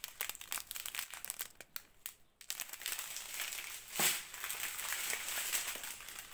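Thin plastic crinkling as strips of small sealed bags of diamond painting drills are handled: quick separate crackles at first, then denser continuous rustling with one louder crinkle about four seconds in.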